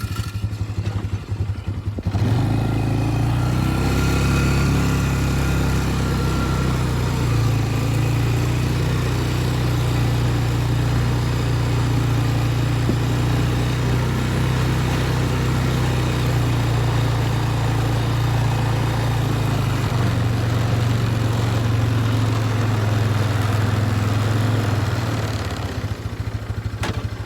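A vehicle's engine running steadily as it drives off, picking up about two seconds in and easing off near the end.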